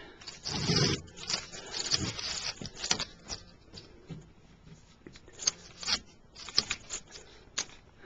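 Scraping, rattling and sharp clicks of hands working at an air handler's sheet-metal cabinet to take off its case cover. The loudest scrapes come in the first two seconds, and a run of sharp clicks follows past the five-second mark.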